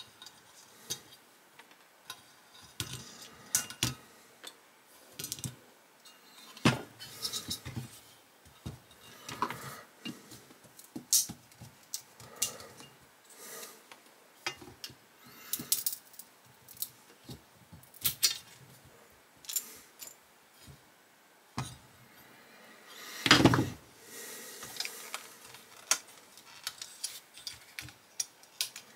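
Scattered clicks, clinks and light scrapes of a die-cast 1:18 model car body being handled and pried at with a small screwdriver. A louder cluster of knocks and rattling comes about three-quarters of the way through.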